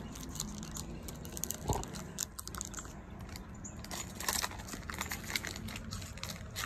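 Foil wrapper of a Pokémon trading-card booster pack crinkling in the hands as it is torn open, in scattered small crackles and clicks.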